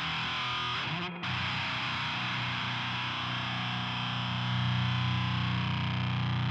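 Electric guitar played through the Acid Rain Pedalworks Judas, a pedal that blends HM2-style distortion with fuzz, giving a heavily distorted metal tone. The playing breaks off briefly about a second in. From about four and a half seconds a held chord rings out, louder.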